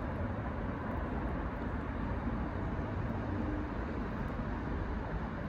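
Steady, low rumbling background noise with no distinct events.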